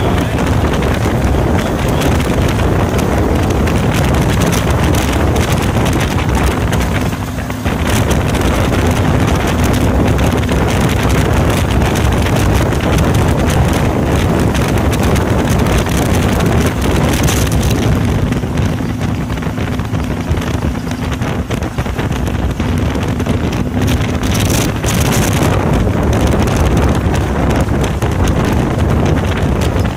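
Vintage car engine running with heavy wind buffeting on the microphone. A faint steady engine note shows through the rush for much of the stretch.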